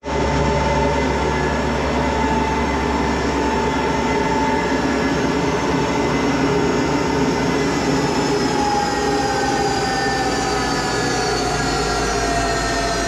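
Monarch 10EE lathe running at high spindle speed to warm up, its motor and headstock gears giving a steady mechanical whine. From about eight seconds in the whine falls in pitch as the spindle slows.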